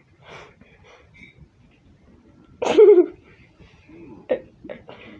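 A person's voice letting out one short, loud cough-like burst with a wavering pitch about two and a half seconds in, followed near the end by three short, sharp vocal sounds.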